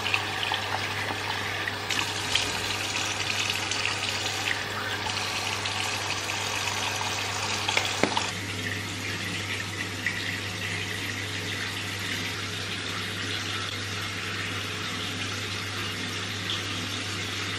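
Bathroom sink tap running steadily, water pouring into the basin, with a slight change in the splashing about eight seconds in.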